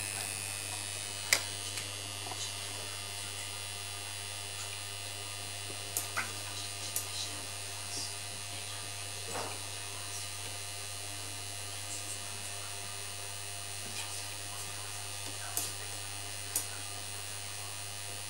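Steady electrical hum from the home-built punched card reader's motor and electrics, with a handful of light, sharp mechanical clicks scattered through it.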